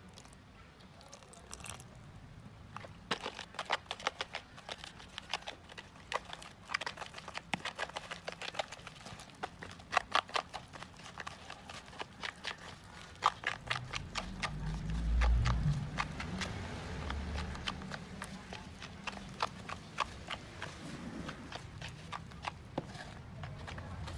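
Metal spoon clicking and scraping against a plastic bowl as egg yolks are stirred into flour, in quick irregular taps. A low bump of handling noise swells a little past the middle.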